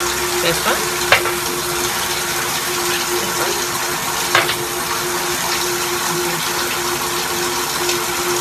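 A steady rushing hiss with a constant hum under it, and two sharp clicks, about a second in and about four and a half seconds in.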